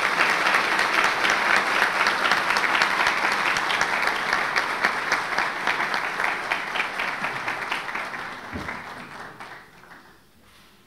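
Audience applauding: dense, steady clapping that thins and dies away over the last few seconds.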